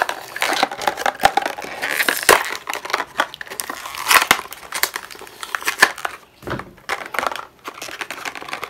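Stiff clear plastic blister packaging crinkling and crackling as it is pulled and peeled off its cardboard backing card by hand, with irregular crackles and several louder snaps.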